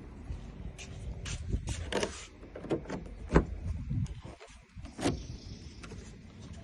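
A run of sharp clicks and knocks from working at a 2000 Dodge minivan's door and lock, the loudest knock about three and a half seconds in.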